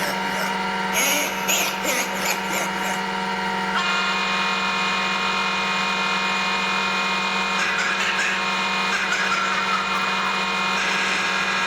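A small electric motor running at a steady speed with a constant whine, with a voice or animal calls over it briefly in the first few seconds and again about eight seconds in.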